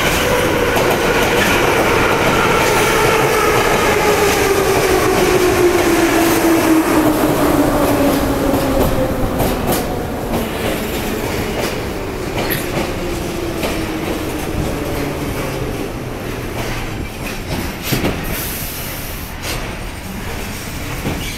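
Ezh3 metro train pulling into the station and slowing to a stop: a whine that falls steadily in pitch as it slows, then wheels clicking over rail joints and a brief high squeal near the end as it brakes.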